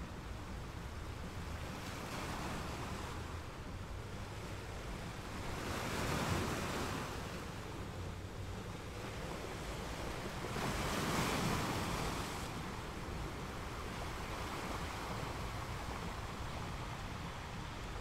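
Sea waves washing in, a steady hiss of surf that swells twice with louder waves, about six and eleven seconds in.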